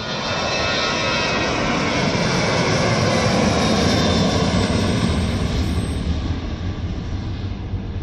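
Jet engines of an Air India Express Boeing 737 at takeoff power as it lifts off and climbs away: a loud rushing jet noise that swells to its peak about three to four seconds in, then slowly fades.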